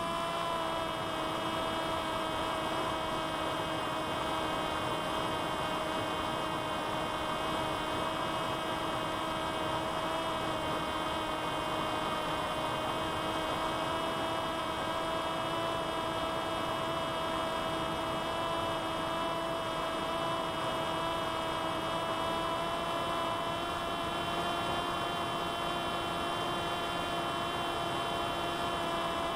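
C1 Chaser flying wing's electric motor and propeller running at a steady cruise, heard from on board as an even, unchanging whine over a haze of wind noise.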